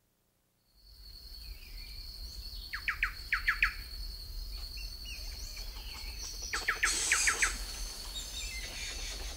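Forest ambience fading in after a moment of silence: a steady high whine under birds calling, with two runs of four or five quick chirps, about three seconds in and about seven seconds in.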